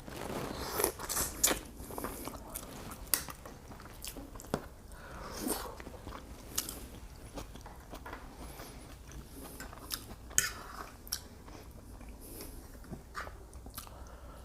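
Close-miked eating: chewing and biting with wet mouth clicks and smacks as a person eats shrimp and pasta.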